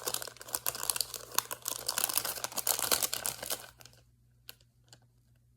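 Crinkly packaging being handled and pulled open with dense crackling and sharp clicks, stopping about four seconds in, followed by a couple of faint clicks.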